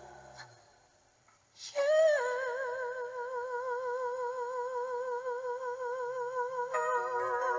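A long held note with an even vibrato begins after a second and a half of near silence, and a second note joins it near the end.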